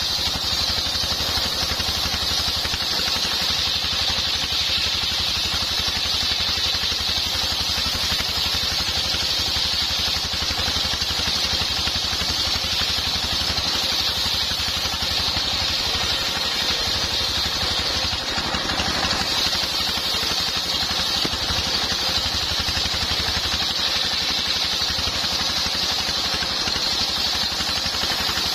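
Homemade table circular saw, belt-driven by a stationary single-cylinder diesel engine, ripping lengthwise through a long coconut-wood beam. The engine runs at a steady fast beat under the continuous high hiss of the blade cutting.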